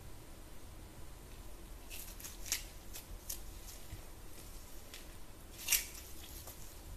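A few short crinkles and crackles from a gold-foil-wrapped slime stress ball being squeezed in the hand, the loudest one about three-quarters of the way through, over a low steady hum.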